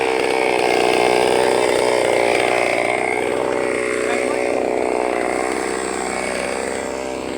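Two-stroke chainsaw engine running steadily, its pitch wavering a little and easing slightly near the end.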